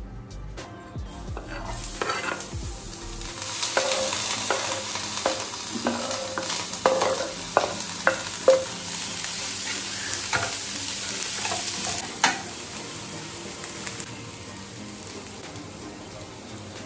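Food sizzling in a pan as it is sautéed, with a spatula stirring and knocking against the pan a dozen or so times; the sizzle eases off about twelve seconds in.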